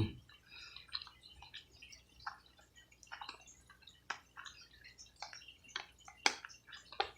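Wet chewing and lip smacks from a person eating barbecue neck bones: irregular small smacks and clicks, with a couple of sharper ones about six seconds in.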